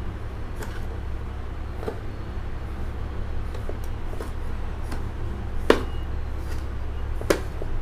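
Metal spoon stirring coarse ground pickle spice mix in a large bowl: soft scraping with scattered light clicks, and two sharper knocks of the spoon against the bowl in the second half. A steady low hum runs underneath.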